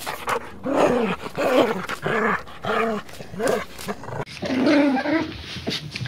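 Puppy giving a run of short vocal calls, each rising and falling in pitch, about two a second.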